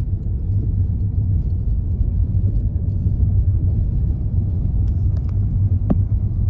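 Steady low rumble of a car driving slowly, engine and tyres on stone paving heard from inside the cabin, with a few faint ticks about five to six seconds in.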